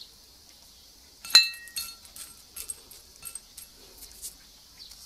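A ceramic food bowl clinks sharply about a second in, ringing briefly, then a string of lighter clicks and taps on the dish follows.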